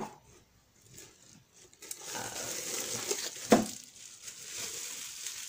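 Bubble wrap crinkling as a wrapped glass jar is handled and unwrapped, starting about two seconds in, with one sharp knock about three and a half seconds in.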